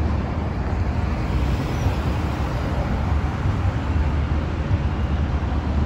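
Steady city street traffic noise, a low rumble of passing cars and buses.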